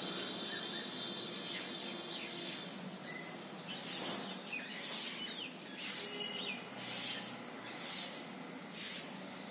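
Pencil drawing lines on paper: about six short scratchy strokes roughly a second apart, starting about four seconds in. Birds chirp faintly in the background.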